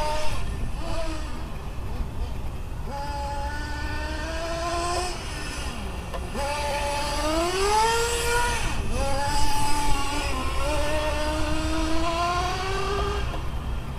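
1/8-scale nitro RC car engine revving as the car drives, its high note falling and climbing again and again, with a long rise about seven seconds in.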